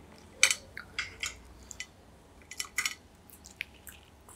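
Metal cutlery scraping and clinking on a plate in a few short, sharp strokes, the loudest about half a second in and a cluster of them near the three-second mark, as food is cut and picked up.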